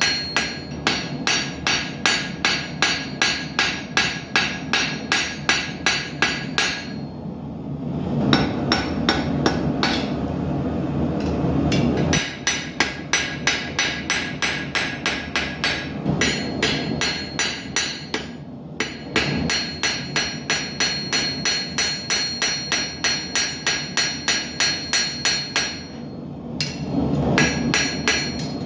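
Blacksmith's hand hammer beating hot steel on an anvil while forging an arrowhead: quick, even blows, about three a second, each with a bright ring. In the few pauses between runs of blows a gas forge's burner is heard as a steady rush.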